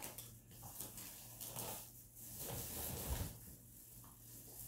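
Faint rustling and soft handling noises of things being picked up and moved about, with a low bump about three seconds in.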